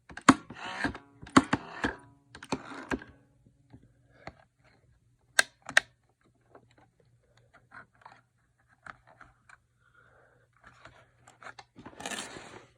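Clicks and knocks of hard parts being handled: a quick cluster in the first three seconds, two sharp clicks about halfway through, scattered light ticks, then a short rustling burst near the end. A faint steady hum sits underneath.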